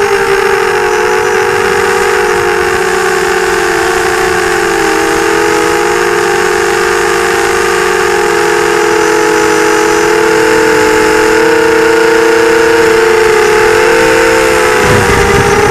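FPV quadcopter's electric motors and propellers whining loudly, heard from the onboard camera: several close pitches that drift up and down a little with the throttle. A low rumble comes in near the end.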